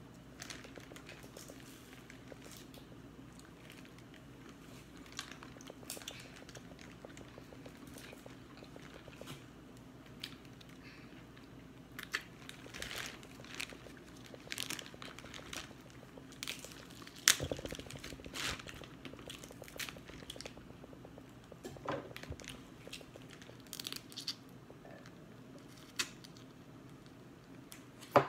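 Plastic bag crinkling and crackling as hands dig through a seafood boil, with scattered sharp cracks and crunches of crab-leg shells being broken, and chewing and sucking sounds. The loudest crack comes a little past halfway, with another sharp one at the very end.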